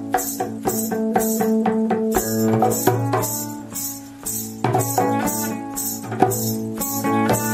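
Ethno-folk instrumental music: a steady low drone with hand percussion beating regularly over it and pitched plucked notes. The percussion thins out for a moment about halfway through, then comes back in.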